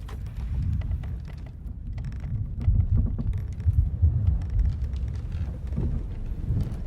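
Low, uneven rumble of wind and sea around a sailing ship, swelling about midway, with scattered faint clicks and knocks.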